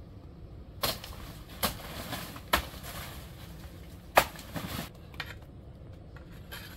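Four sharp knocks or strikes, unevenly spaced over about three and a half seconds. The loudest comes about four seconds in and is followed by a brief noisy rustle.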